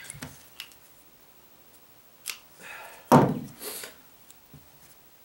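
Handling noises from a roll of foam weatherstripping: small clicks and rustles, then one sharp knock about three seconds in, the loudest sound, followed by a short scraping hiss.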